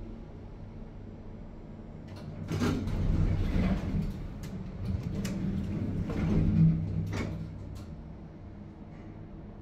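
Schindler lift doors sliding in two runs, each with sharp clicks from the door mechanism, starting about two seconds in and again about five seconds in. A steady low hum lies under them.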